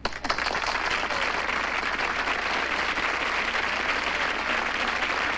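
Sitcom studio audience applauding, breaking out suddenly and holding steady.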